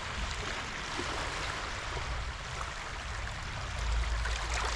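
Small waves of the incoming tide washing over the shallows: a steady hiss of moving seawater. A low rumble on the microphone swells near the end.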